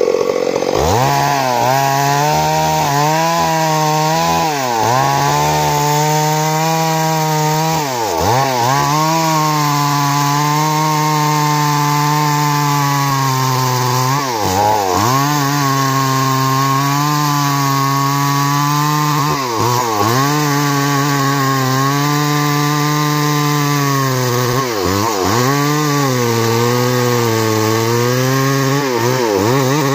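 Stihl MS 382 two-stroke chainsaw at full throttle, cutting into the trunk of a large tree. The engine note sags every few seconds as the chain bites into the wood, then picks back up.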